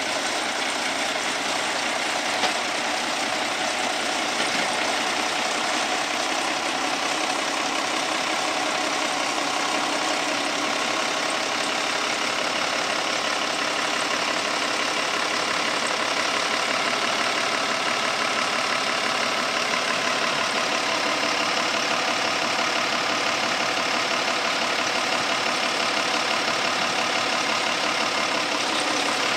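International 986 tractor's six-cylinder turbo diesel engine running steadily at low revs while the tractor is driven slowly up the ramps onto a flatbed trailer.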